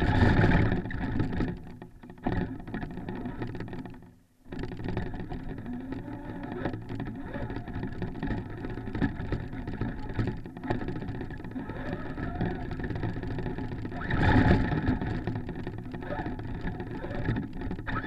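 Traxxas Stampede radio-controlled truck driving through snow, its motor and gears whining steadily as heard from a camera mounted on the truck. The sound surges louder just after the start and again about 14 seconds in, and cuts out briefly about 4 seconds in.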